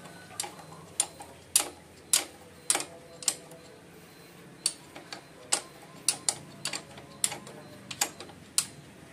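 Sharp metal clicks, about two a second, with a short pause near the middle, from a wrench working the 17 mm oil drain bolt of a Honda Astrea Grand engine loose.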